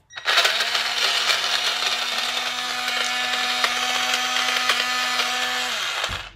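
Portable blender's motor running with a steady whine, chopping a thick basil and garlic pesto that has little liquid. It switches on just after the start and winds down with a falling pitch near the end.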